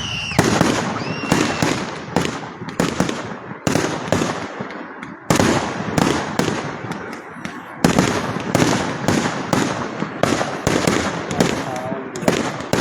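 Aerial fireworks bursting in quick succession: a dozen or more sharp bangs, each trailing off in a rumbling echo and crackle.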